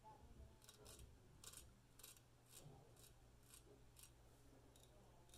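A 5/8 full hollow ground straight razor scraping through whiskers on the upper lip in short, faint strokes, about two a second.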